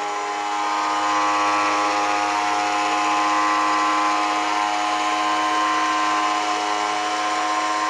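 Comeup electric winch running steadily on a test after its service and bearing replacement: a continuous motor-and-gear whine at one fixed pitch.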